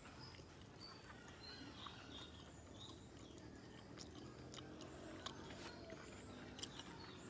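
Faint chewing of a bite of a leaf-wrapped snack, with scattered small mouth clicks.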